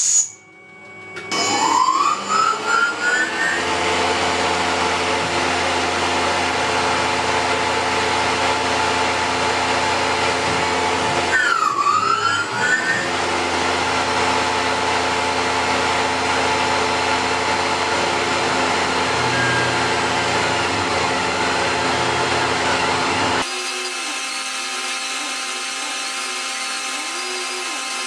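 Milling machine running: the spindle spins up with a rising whine about a second in, then runs with steady machining noise. Near the middle the sound dips briefly and the whine rises again. About 23 s in it cuts abruptly to a quieter steady machine hum with a repeating wavering tone.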